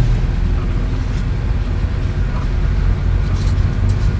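Mitsubishi L300 minibus driving slowly, heard from inside the cabin: a steady low engine and road rumble.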